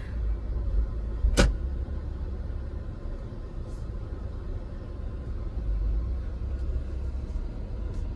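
Steady low rumble of a car on the move, heard from inside the cabin, with one sharp click about a second and a half in.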